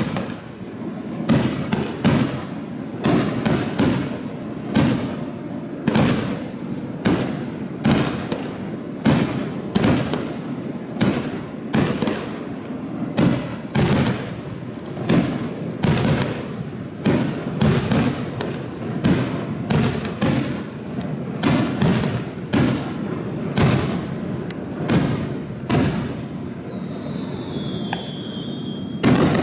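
Aerial firework shells bursting in a steady, rapid series of bangs, roughly one every second.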